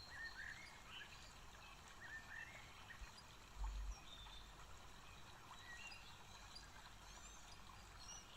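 Near silence: quiet room tone with faint, scattered bird chirps and one soft low bump about three and a half seconds in.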